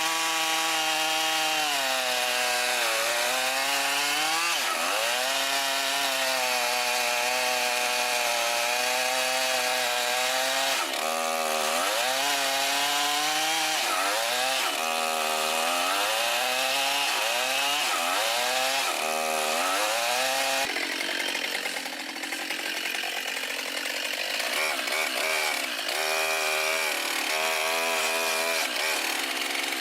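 Chainsaw running under load, cutting into a thick tree trunk. The engine note sags again and again as the chain bites and picks back up as it frees. About 21 seconds in the sound changes abruptly to a quieter, rougher chainsaw cut whose pitch swings faster.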